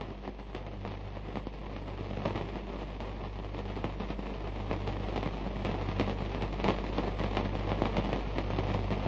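Crackle and hiss from a worn old film soundtrack, dense random clicks over a steady low mains hum, slowly growing louder.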